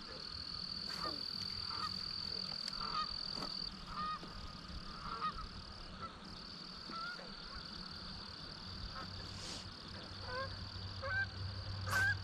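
Outdoor pond ambience: faint, scattered, honk-like bird calls over a steady high-pitched drone, with a few light clicks.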